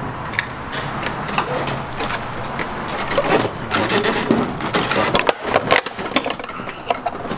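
Plastic trim and metal hinge parts of a truck seat clicking, knocking and rattling as they are handled and pried apart with a screwdriver, in many short irregular clicks.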